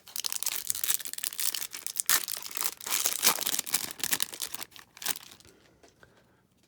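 Foil trading-card pack wrapper being torn open and crinkled, a dense crackling that dies away about five seconds in.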